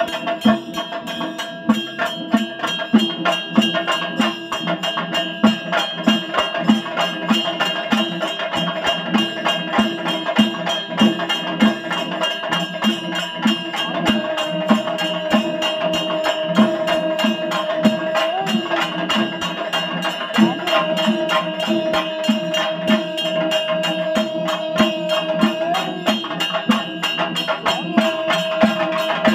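Traditional temple puja music: a steady drum beat of about two strokes a second under fast, high percussion, with a long held melody note that steps in pitch a few times from about halfway through.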